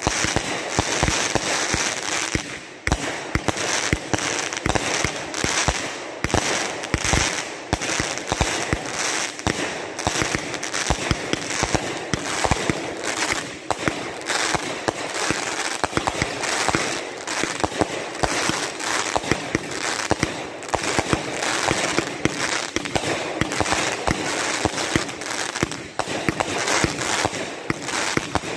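Aerial fireworks launching and bursting in rapid, unbroken succession, with dense crackling from crackle stars between the louder bangs.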